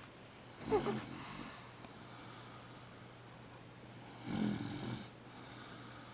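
An older woman snoring in her sleep: two loud rasping snores about three and a half seconds apart, with softer breathing between them.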